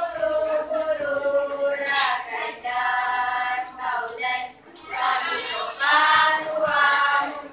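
A group of girls singing together without accompaniment, their kompang drums silent, in long held phrases with a short break about four and a half seconds in.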